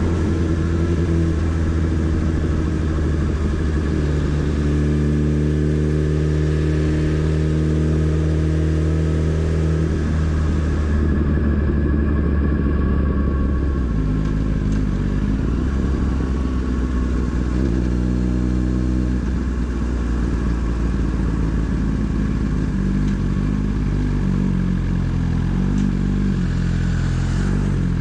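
Motorcycle engine running while riding, its note holding steady for stretches and shifting to a new pitch a few times as the revs change.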